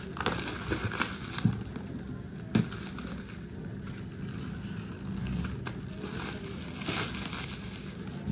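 Plastic stretch wrap crinkling and rustling as hands pull at it and at the plastic packing straps around a cardboard carton, with a few sharp clicks, the loudest about two and a half seconds in.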